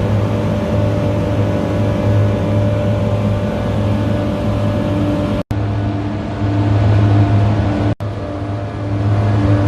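McQuay screw compressor running with a steady, loud low hum and a few steady tones over a constant mechanical noise. The sound drops out for an instant twice, about halfway through and again a couple of seconds later.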